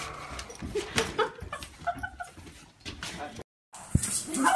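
A puppy's short whimpers and yips mixed with people's voices, with a few sharp knocks.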